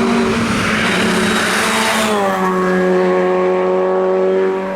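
Race car engine running hard, with pitch that drops sharply about two seconds in and then holds steady.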